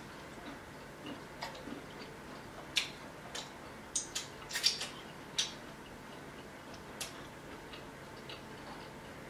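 A person chewing shrimp close to the microphone: scattered, irregular wet mouth clicks and smacks, bunched together around the middle.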